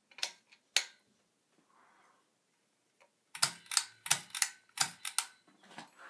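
Sharp clicks: two single clicks near the start, then a quick run of about ten clicks over two seconds.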